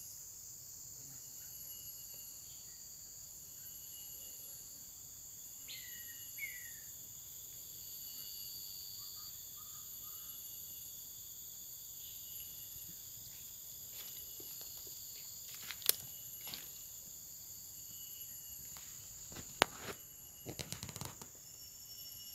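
Insect chorus: several steady high-pitched trills layered at different pitches, some pulsing, with a short falling call about six seconds in. Sharp clicks come at about 16 seconds, and a cluster of knocks near the end is the loudest sound.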